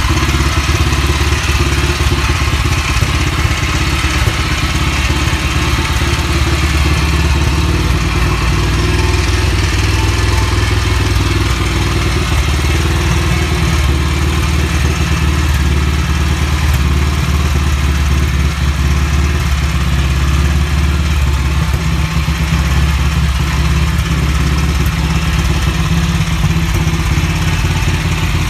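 A classic motorcycle's pushrod engine idling steadily.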